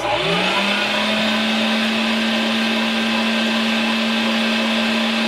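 LEM Mighty Bite #8 electric meat grinder switched on, its motor spinning up in the first half second and then running steadily with a hum and whir while it stuffs ground venison sausage into a casing.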